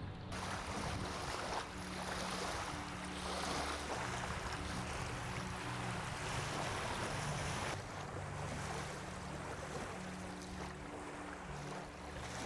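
Steady rushing noise of lake waves and wind, with soft background music of low held notes underneath.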